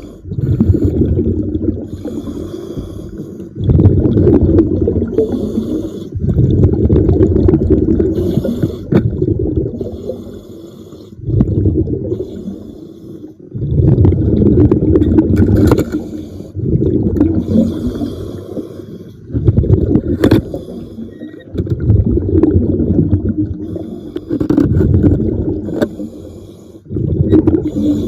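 A diver breathing underwater: loud bubbling rumbles of exhaled air every two to four seconds, with quieter pauses between them as the diver inhales, and a few sharp clicks.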